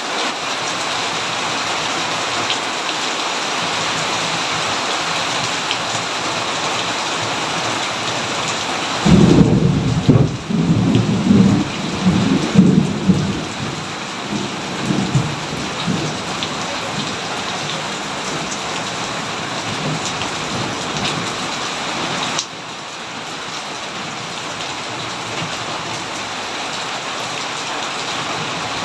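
Steady rain falling, with a clap of thunder about a third of the way in that rumbles loudly for several seconds and fades away. Near the end of the thunder-free stretch the rain abruptly becomes a little quieter.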